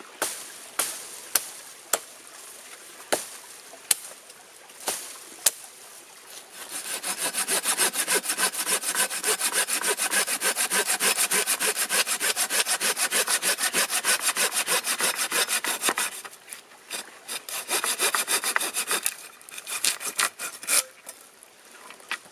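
Hand saw cutting through a piece of firewood in quick, steady back-and-forth strokes for about ten seconds, starting a few seconds in. Before and after the sawing come scattered sharp knocks and snaps of wood being handled.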